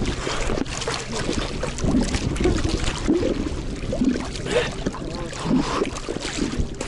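Sea water sloshing and splashing around a camera held at the surface by a swimmer, coming and going unevenly as waves wash over it.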